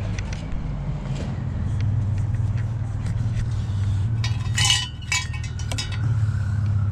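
Metal intercooler pipes clinking and rattling against each other as they are handled, a short burst of ringing clinks about four and a half seconds in, over a steady low hum.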